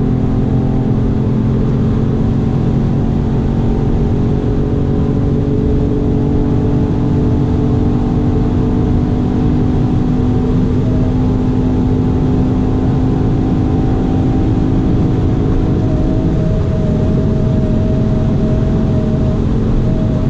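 Ford Fiesta ST's 1.5-litre turbocharged three-cylinder engine pulling hard at high autobahn speed, heard inside the cabin over steady wind and tyre noise. The engine note holds almost steady as the car slowly gains speed, and it changes once about three-quarters of the way through.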